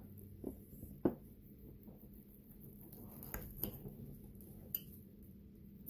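A few light clicks and knocks of cutlery against dishes, the sharpest about a second in and a couple of fainter ones past the middle.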